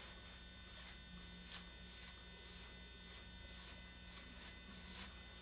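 Slicker brush raking through a Shih Tzu's long ear hair: faint, soft brushing strokes about twice a second, over a steady low electrical hum.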